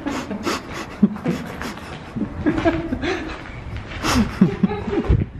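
Men laughing and chuckling, with scraps of indistinct talk.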